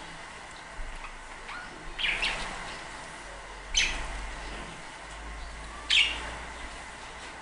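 Budgerigars in a colony chirping: a few short, sharp calls stand out about every two seconds over fainter chirps.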